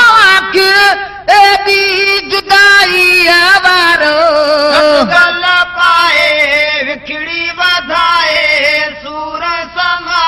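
Devotional song: a single voice singing long, ornamented notes that waver and slide in pitch, with brief breaths between phrases.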